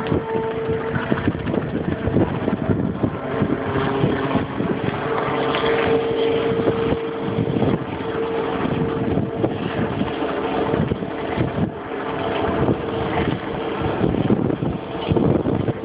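Wind buffeting the microphone in uneven gusts, over a steady mechanical hum.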